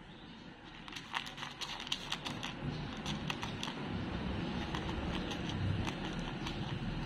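A cat crunching dry kibble from a plastic bowl: quick irregular runs of sharp crunches starting about a second in, over a low rumble.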